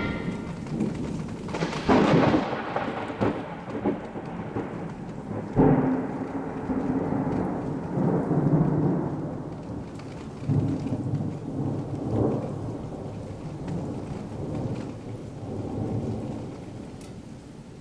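A loud crash about two seconds in, then low rolling rumbles that swell and fade at irregular intervals and slowly die away.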